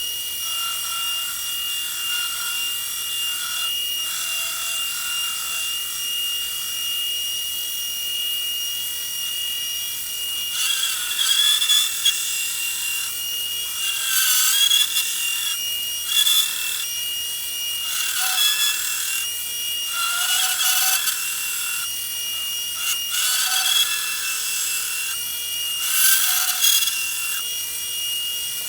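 Power sander running with a steady high whine, a knife blank pressed against it in a series of short grinding passes, each lasting a second or two, starting about ten seconds in, as the blade is being shaped.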